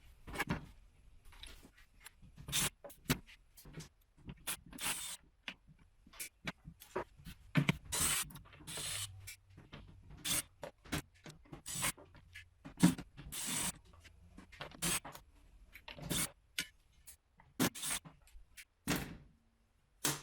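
Phillips head screws being taken out of a soundbar's plastic case: irregular short clicks, scrapes and knocks of the driver, screws and case being handled.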